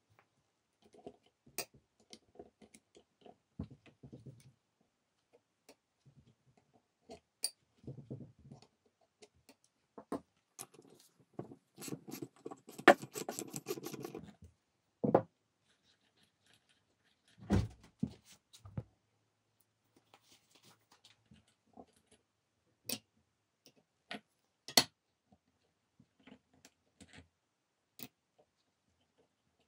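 Metal clicks and knocks as an old car alternator is handled and turned over. About twelve seconds in, a socket wrench on the alternator's pulley nut gives a quick run of ratchet clicks, the loudest part. A dull thump and a few sharp metallic taps follow.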